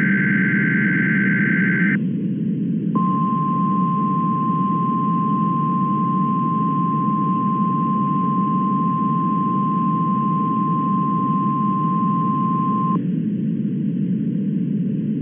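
NOAA Weather Radio test tones over a steady radio hiss. The last SAME header data burst, a buzzing warble, ends about two seconds in. A second later the single steady 1050 Hz alert tone sounds for about ten seconds, the signal that sets off weather radio receivers' alarms.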